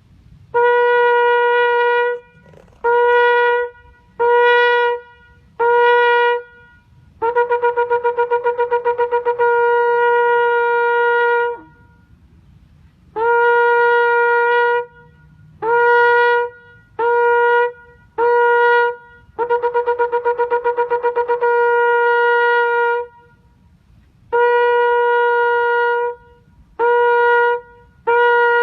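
Shofar (ram's horn) blown in a series of blasts on one steady note: long calls, groups of three short calls, and two long calls that flutter rapidly in their first half.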